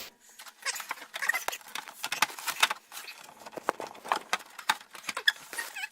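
Irregular clicks, taps and light rattles of snorkel parts and a clamp being handled, as the snorkel's intake is worked onto the airbox rubber boot. A few short squeaks are mixed in.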